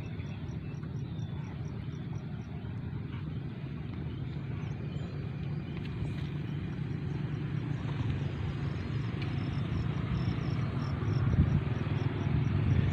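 Steady low outdoor rumble, with a faint high chirp repeating about four times a second, as from an insect.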